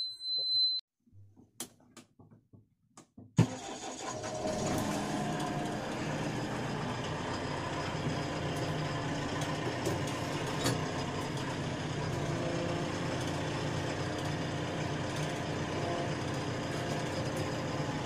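A short high beep in the first second, then a JCB 3DX backhoe loader's four-cylinder diesel engine starts about three seconds in and settles into a steady idle.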